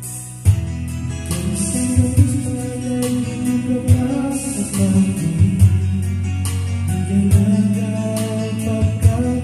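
Karaoke backing track with guitar playing from a TJ Media Maestro TKR-335P karaoke machine, coming in loudly about half a second in, with a voice singing along into the microphone.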